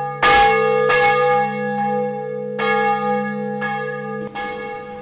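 Bells ringing: about six strikes, roughly one a second, each ringing on over a held low tone.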